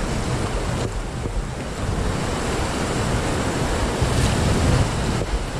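Steady rush of whitewater through river rapids, with wind buffeting the microphone.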